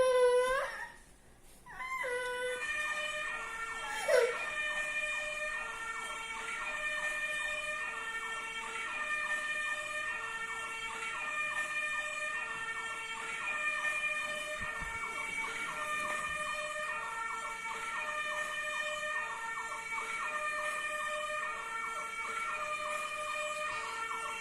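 Fire truck siren sounding a two-tone hi-lo wail, switching between a high and a low note about every three-quarters of a second, starting about two seconds in. A short falling squeal stands out about four seconds in.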